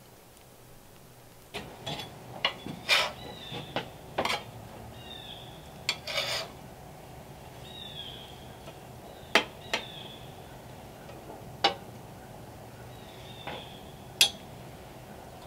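Metal spatula scraping across and clanking on a flat-top griddle, in irregular strokes with several sharp taps, starting about a second and a half in.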